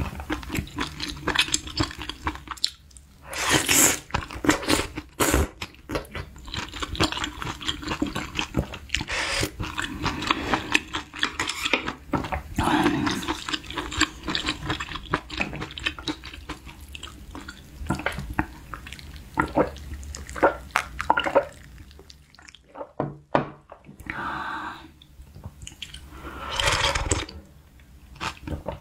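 Close-up mukbang eating sounds from a spicy beef-intestine hot pot with glass noodles: wet chewing, slurping of noodles and broth, and clicks of chopsticks and a wooden spoon. There are two longer slurps, one about four seconds in and one near the end.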